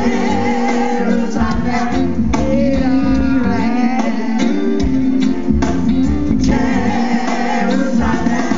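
Live reggae band playing: electric guitars and drum kit, with a voice singing over them.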